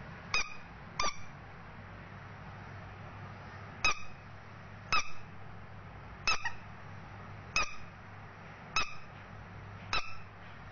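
Squeaky yellow rubber duck toy squeezed by hand, giving short high squeaks: two quick ones near the start, a pause of about three seconds, then six more at a steady pace of a little under one a second.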